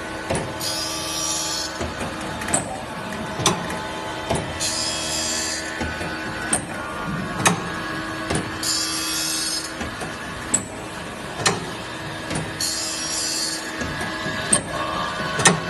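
Saw blade tooth grinding machine running in a repeating cycle over a steady motor hum. About every four seconds there is a second-long high grinding hiss, followed by two sharp clicks about a second apart.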